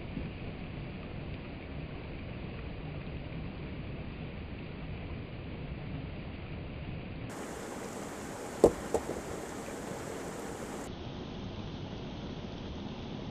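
Steady rush of falling water from a waterfall, with two sharp knocks close together a little past the middle.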